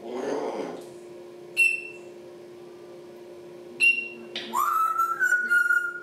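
African grey parrot calling: a short harsh warble at the start, two sharp clicks about two and four seconds in, then a whistle that rises and holds for about a second and a half. A steady low hum runs underneath.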